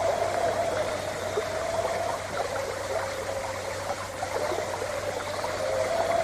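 Water trickling and gurgling, with many small drips and splashes, over a steady, slightly wavering tone that is the loudest sound throughout.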